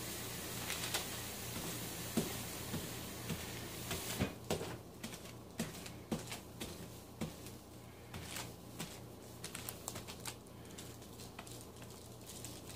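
Soft, irregular pats and crackles of hands squeezing and packing crumbly flaky pie-crust dough into a firm ball. A steady hiss underlies the first four seconds, then stops.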